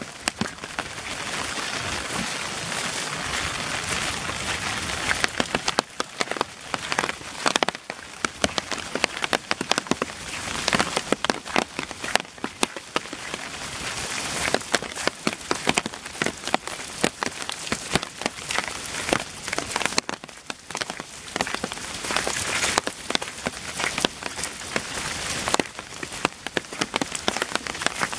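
Rain falling steadily: a constant hiss with many sharp, close drop strikes ticking irregularly over it.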